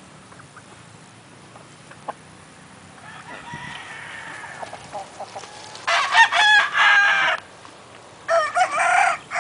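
Gamecocks crowing: a faint crow about three seconds in, then two loud crows, the first about six seconds in, the second starting a little after eight seconds.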